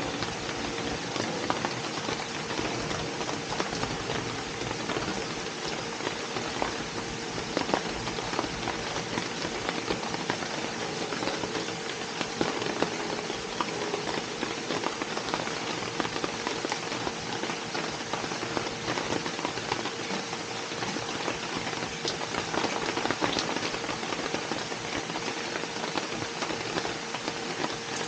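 Steady rain falling, a dense patter of many small drop ticks over an even hiss, with a faint steady hum underneath.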